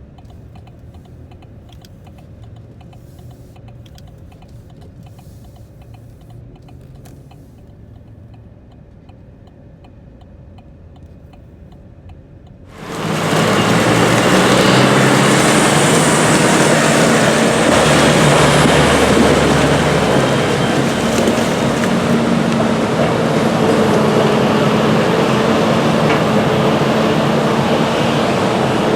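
Heavy farm machinery at work in a corn silage harvest. First a moderate steady engine hum with regular light ticking. About thirteen seconds in it cuts abruptly to a loud, dense mix of engine noise and mechanical clatter.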